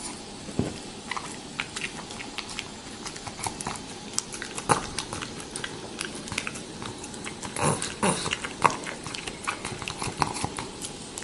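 Pug licking soft-serve ice cream: a quick, irregular run of wet licking and smacking sounds, with a few louder smacks about two-thirds of the way through.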